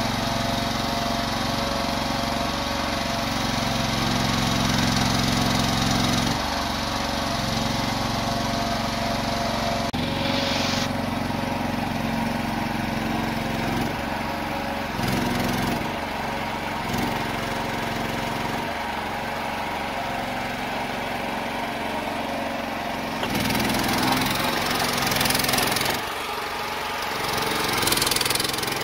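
Small engine of an MS-TL116 mini loader running steadily, its note rising and getting louder for a second or two several times as the loader works under load carrying and lifting a round hay bale on bale forks.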